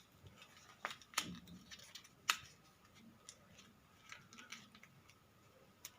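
Faint crackles and sharp little snaps of a paper square being folded and creased by hand, the clearest about one and two seconds in.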